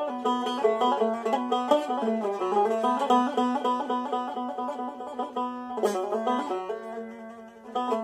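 Sazbüş, a saz neck on a metal-bowled, skin-headed cümbüş body, played solo with a plectrum in a free improvisation: quick runs of twangy picked notes over a steady low drone string. A single hard stroke about six seconds in, after which the notes thin out and get quieter.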